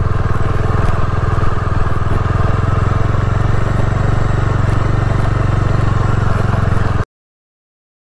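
Bajaj Dominar 400's single-cylinder engine running steadily as the motorcycle rides a dirt track. The sound cuts off suddenly about seven seconds in.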